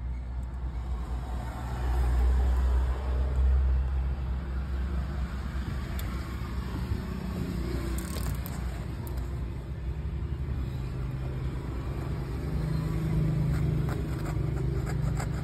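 Low steady rumble of vehicle engines, louder for a couple of seconds early and again near the end, with a few light clicks about halfway and in the last seconds.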